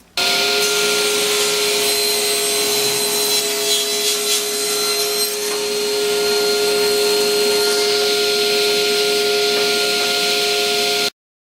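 An electric power tool's motor running steadily with a constant whine and a hiss, starting at once and cutting off suddenly near the end.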